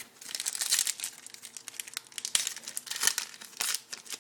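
A trading-card pack wrapper crinkling and tearing as a pack is opened by hand, in a quick run of irregular crackles.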